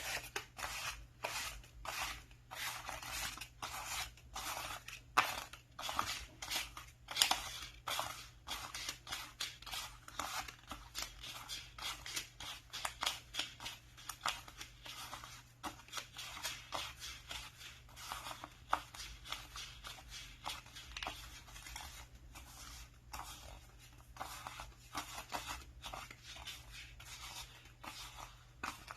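Paper banknotes being counted by hand: a steady run of crisp, papery flicks and rustles, a few a second, as one note after another is thumbed through.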